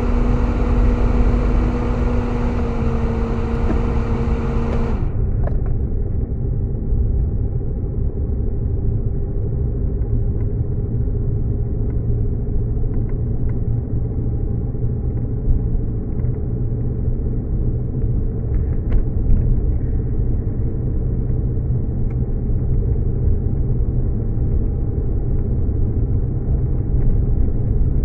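Car driving, heard from inside the cabin: a steady low rumble of engine and tyre noise, with a humming tone that drops away about five seconds in and a few faint clicks later.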